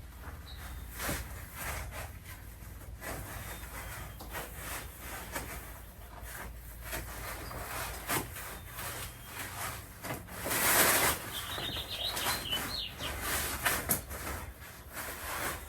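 Rustling, rubbing and light clicks and knocks of a Halloween animatronic prop's costume and plastic parts being handled during assembly, with a louder rustle about eleven seconds in and a few faint high squeaks just after.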